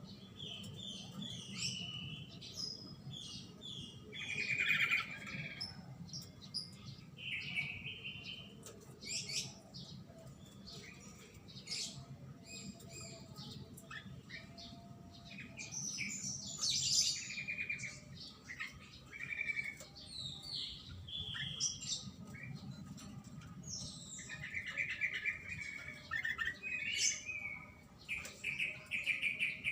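Caged black-naped oriole (golden oriole) calling: a long run of varied short chirps and whistled notes in quick succession, with a low steady hum beneath.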